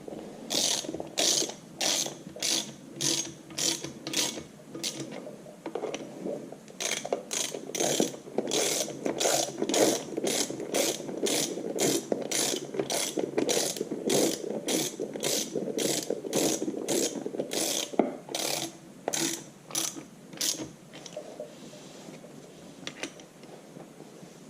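Hand socket ratchet clicking in quick repeated strokes as the bolts holding the wheel-hub end cap are run down. There is a short pause about five seconds in, and the clicking stops about three seconds before the end.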